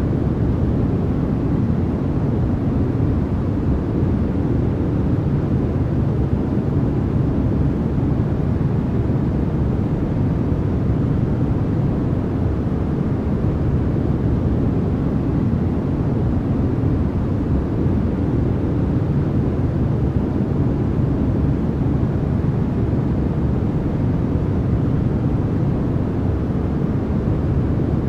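Continuous generated white noise: a steady, unchanging hiss that sits mostly low, deep rather than bright, with little high treble.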